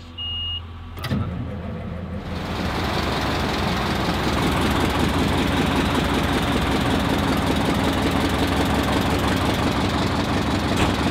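A short high beep, then a click about a second in, after which an engine starts and runs steadily and loudly.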